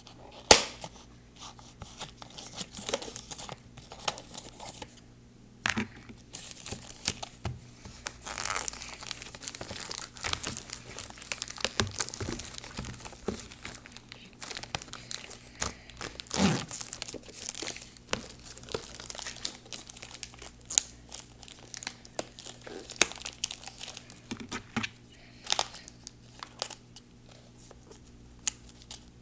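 Glossy plastic packaging being handled and opened by hand, crinkling and tearing in irregular crackles with scattered sharp clicks.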